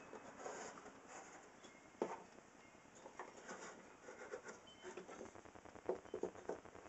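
Wooden staves and splines slid and pressed together by hand: light scraping and rubbing of wood on wood, with a sharp wooden knock about two seconds in and a few quick knocks near the end as the pieces seat.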